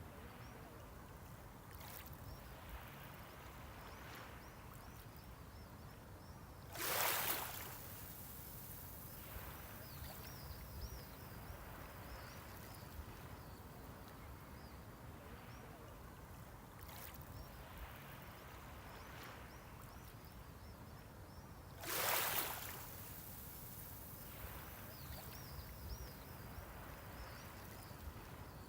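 Small sea waves breaking on the shore, two of them clearly, about fifteen seconds apart, each a short rush of surf over a steady low wash of the sea, with weaker wash-ups in between. Faint high chirps come and go in the background.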